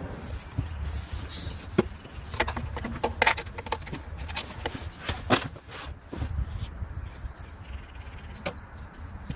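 Irregular metallic clicks and knocks from hand tools and parts during work on a car's turbocharger, with a cluster of them about two and a half seconds in. A low rumble runs underneath.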